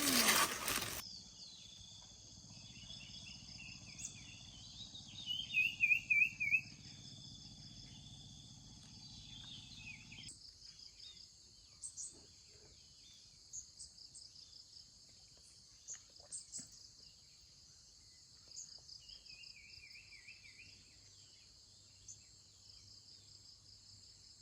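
Steady high-pitched chirring of crickets and other insects, with a bird's warbling call twice, about five seconds in and again near the end.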